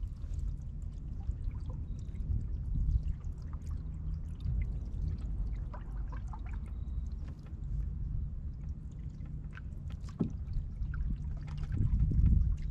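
Water trickling and dripping as a canoe is paddled, with scattered small splashes over a steady low rumble that swells near the end.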